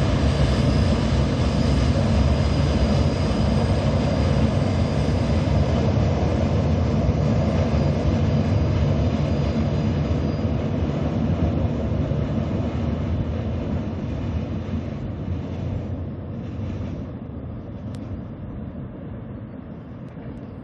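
Container freight train wagons rolling over a concrete railway viaduct in a loud, steady low rumble. The rumble fades steadily through the second half as the train draws away.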